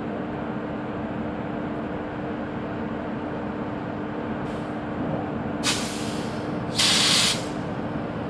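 WAP1 electric locomotive idling with a steady hum and one held tone, broken by two short hisses of released compressed air: a brief one about five and a half seconds in, then a louder half-second one about a second later.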